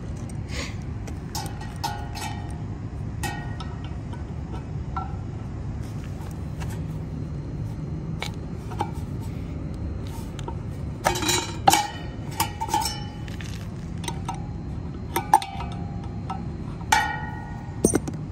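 Metal clinks and taps of a wrench on the blower wheel's hub set screw as the wheel is worked loose from the old motor shaft, several strikes leaving a brief ring from the sheet-metal wheel, the loudest clusters in the second half. A steady low rumble underneath.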